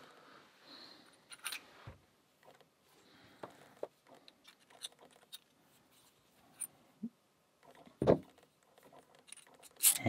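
Light metallic clicks and small scrapes from the brass core and steel housing of a disassembled Stealth Key Anchor padlock being handled and fitted together, with a louder knock about eight seconds in.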